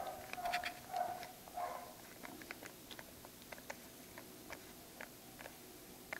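Faint, irregular light clicks of a small screwdriver turning a tiny screw into the hard-drive bracket inside a MacBook Pro 13-inch, with soft handling noise in the first couple of seconds.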